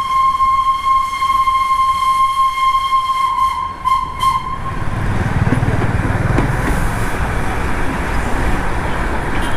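Steam whistle of the Darjeeling toy train's steam locomotive blowing one long steady note, breaking into a few short toots about four seconds in. After that comes a steady hiss and low rumble from the locomotive.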